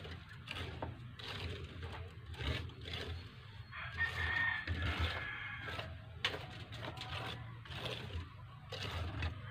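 A rooster crowing once, about four seconds in, over repeated short scraping strokes of a hand tool on the concrete sink top.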